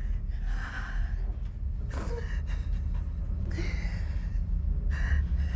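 A woman gasping in pain, a few short sharp breaths, over a steady low rumble.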